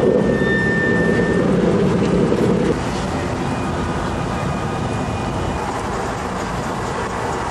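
Car engine running, loud for the first few seconds and then dropping suddenly to a steadier, quieter rumble.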